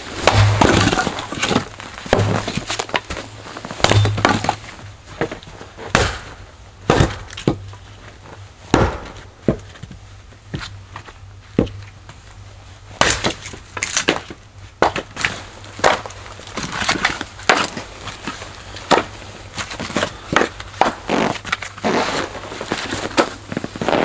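Firewood being split with an axe on a chopping block: a run of sharp wooden knocks and cracks at irregular intervals, with split pieces clattering onto the pile.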